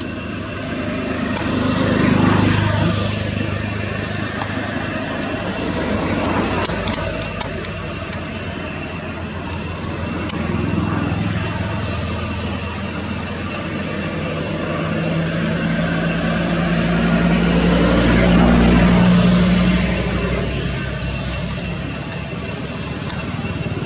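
Engines of passing motor vehicles, a low hum that swells about two seconds in and again more slowly around eighteen seconds, over a steady high-pitched whine.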